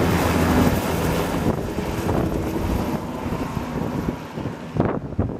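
Bell 206L LongRanger helicopter flying overhead and away. Its turbine and two-blade rotor sound fades steadily over a few seconds. Near the end, a few thumps of wind on the microphone.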